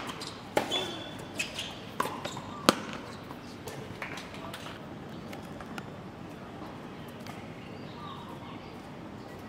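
Tennis ball struck by rackets and bouncing on the hard court in a short rally: a few sharp pops within the first three seconds, the loudest about two and a half seconds in. Then only steady outdoor background noise.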